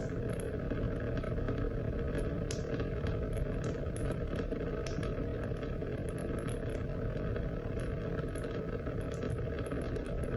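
Continuous rain falling: an even, steady wash of noise with many small drop ticks scattered through it.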